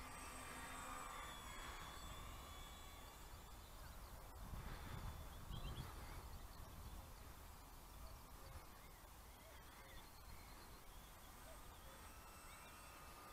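Faint open-air ambience: wind rumbling on the microphone, a thin distant whine from the foam RC P-38 Lightning's electric motors that fades out in the middle and comes back near the end, and a few bird calls.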